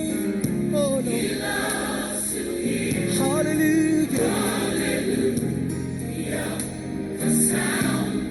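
Gospel choir singing over instrumental accompaniment.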